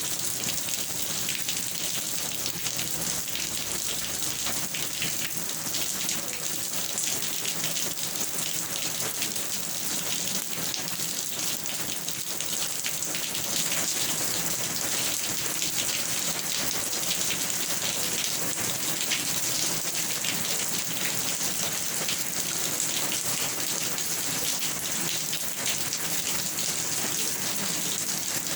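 Steady rain falling on a surface, a dense patter of many fine drops, a little louder from about halfway through.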